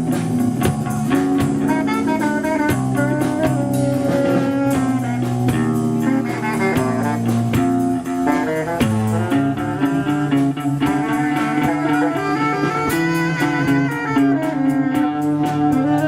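Live band playing an instrumental passage with electric guitar, bass and drum kit, and saxophone or brass lines.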